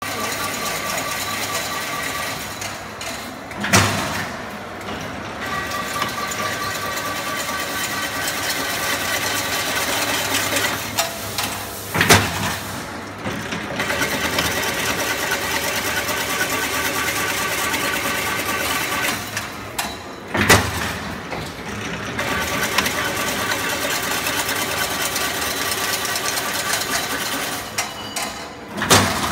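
LW 25/80 fully automatic chain link fence machine running, a steady mechanical clatter and whir as it weaves wire into mesh, with a loud clank four times, about every eight seconds.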